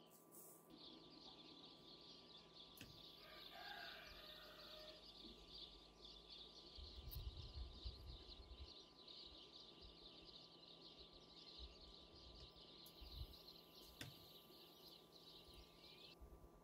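Faint outdoor ambience: a steady high-pitched animal chorus that starts just after the beginning and cuts off abruptly near the end, with a brief low rumble about halfway through.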